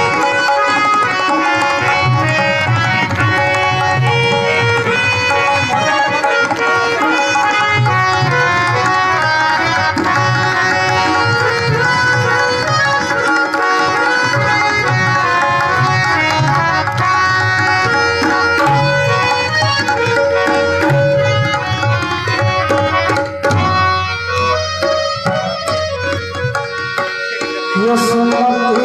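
Instrumental interlude of Indian folk music: tabla playing a steady rhythm under held melodic accompaniment. The music thins out near the end before a new line enters.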